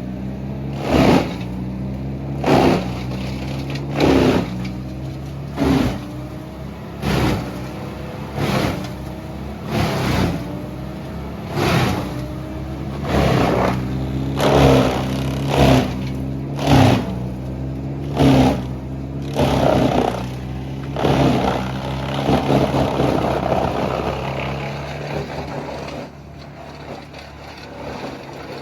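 An engine running steadily, with a short, harsh burst about every one and a half seconds that stops about three quarters of the way through; the engine keeps running and drops in level near the end.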